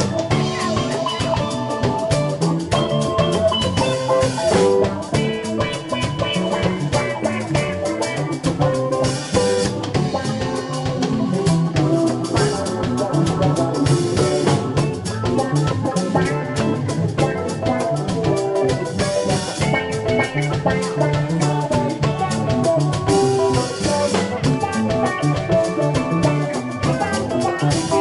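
Live band playing a New Orleans second-line funk groove on drum kit, electric guitars, electric bass and electric keyboard.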